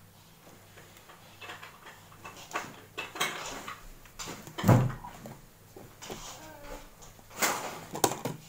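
Tabletop handling noises: light crackles and rustles as a crusty bread roll is broken open by hand, one solid knock on the table about halfway through, then clicks as a glass honey jar is picked up by its lid near the end.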